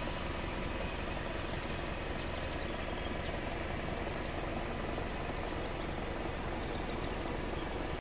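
Steady outdoor background noise: an even hiss with no distinct events, which cuts off abruptly at the end.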